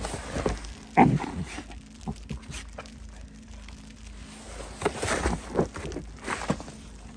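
Snow crunching and scraping in several short bursts, once about a second in and again in a cluster around five to six and a half seconds in.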